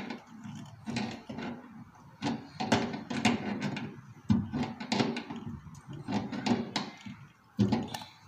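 Irregular clicks and knocks of a refrigerant charging hose's brass fitting being screwed by hand onto an air conditioner outdoor unit's service valve, with the hose and fittings jostled against the unit.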